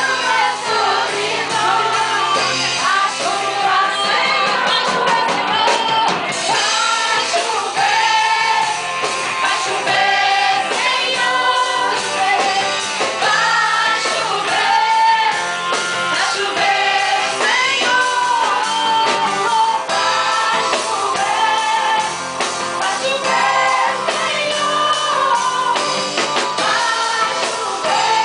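Worship music at a church service: several voices singing a song together over instrumental accompaniment, steady throughout.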